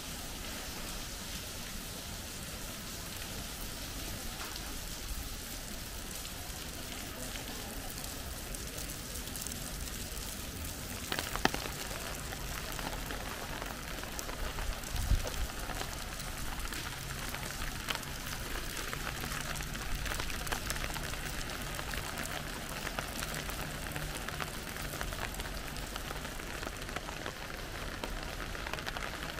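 Steady rain falling and pattering on surfaces, with a sharp click about eleven seconds in, a low thump a few seconds later, and a faint low hum through the middle stretch.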